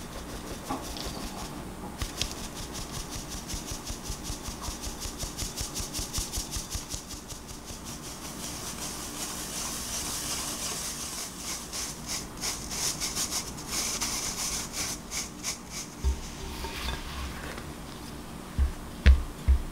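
A stainless-steel mesh sieve rasps rhythmically, a few strokes a second, as rice flour and ground almonds are shaken and rubbed through the mesh by hand. Near the end a silicone spatula stirs the dry flour in a glass bowl, with a couple of sharp knocks.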